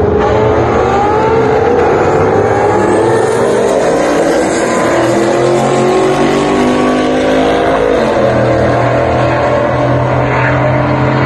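Several cars accelerating at full throttle side by side in a roll race, among them a straight-piped, cammed C6 Corvette V8. The engine notes climb in pitch and drop back at each gear change, then settle into a steadier note over the last few seconds.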